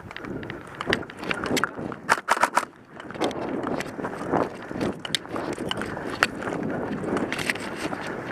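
An airsoft player moving over rough ground: footsteps and the rustle of gear and clothing, with a quick run of four sharp clicks about two seconds in.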